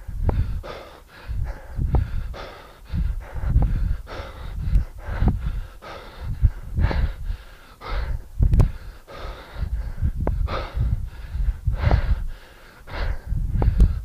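Hard, forceful breathing of a man swinging a kettlebell two-handed: quick sharp breaths in a steady rhythm that follows the pace of the swings, with the effort of a high-intensity interval.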